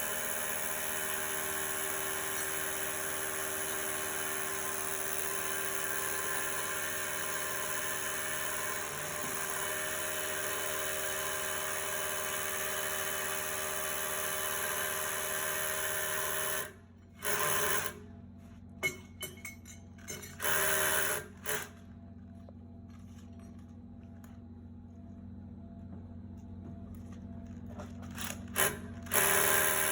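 Electric hammer drill boring an anchor hole in concrete. It runs steadily for about seventeen seconds, stops, then comes in several short bursts and runs again near the end.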